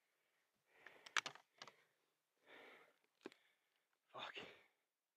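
Near silence broken by a few faint clicks and soft breaths, about two and a half and four seconds in.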